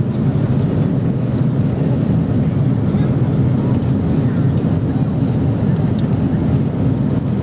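Steady low roar inside the cabin of an Airbus A300B4-622R during its landing rollout on the runway, with the wing spoilers raised: the sound of the airliner's engines and airflow heard through the fuselage.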